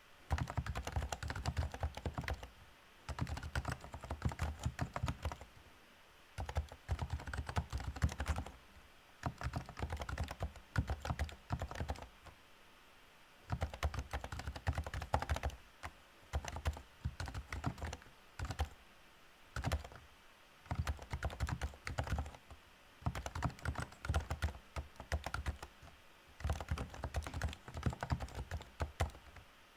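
Typing on a REALFORCE R2SA-US4M keyboard with Topre electrostatic capacitive key switches: rapid runs of keystrokes with a deep, thocky low end, broken by short pauses.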